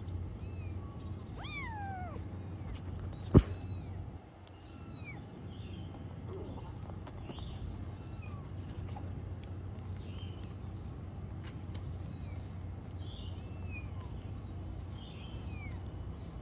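Young kittens mewing in short, high cries, scattered every second or two as they wrestle. One sharp knock about three seconds in is the loudest sound.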